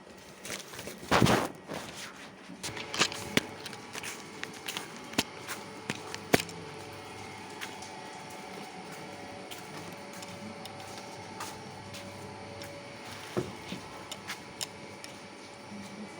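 Scattered knocks and clicks of things being handled, the loudest a brief bump about a second in, over a steady low background hum.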